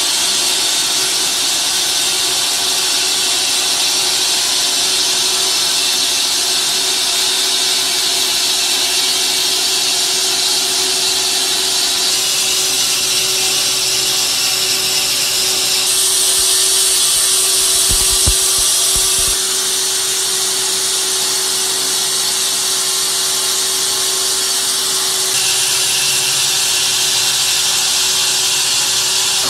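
Band sawmill running, its blade cutting through a log: a steady machine hum with a loud hiss from the cut, changing in tone a few times. A few low knocks about two-thirds of the way through.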